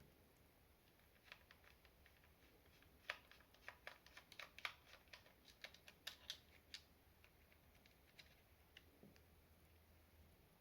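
Faint, scattered clicks and taps of a small screwdriver working at the bottom screws of a mini PC case, with a quick run of them in the middle.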